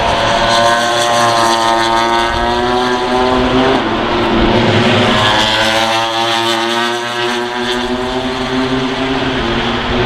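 MotoGP racing motorcycles' 1000cc four-cylinder engines at high revs as the bikes pass at speed one after another, each engine note bending in pitch as it goes by, the second pass about four seconds in.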